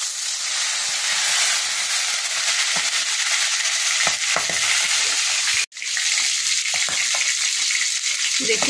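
A large marinated katla fish head frying in smoking-hot mustard oil in a kadhai: a loud, steady sizzle with small crackling pops, which breaks off for an instant about two-thirds of the way through.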